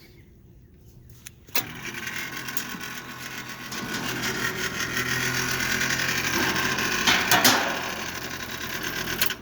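Bryant two-stage heat pump compressor kicking on with a click about a second and a half in, running with a loud, rough mechanical noise that builds for several seconds, then cutting off suddenly near the end. The compressor has failed and needs replacing.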